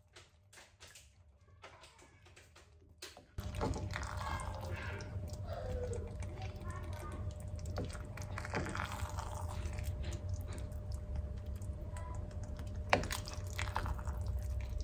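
Wooden spoon scooping thick chicken and vegetable pot pie filling, with soft scrapes and taps against ceramic dishes. A steady low hum starts about three seconds in, and there is one sharper knock near the end.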